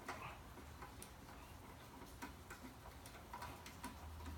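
Faint, irregular small metallic ticks and clicks as the threaded Allen-head pad-retaining pin of a motorcycle brake caliper is turned out by hand, over a low steady hum.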